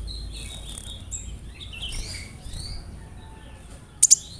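Kolibri ninja sunbird (konin) singing a rapid run of high chirps, short trills and slurred notes. Two sharp, loud clicks come close together near the end.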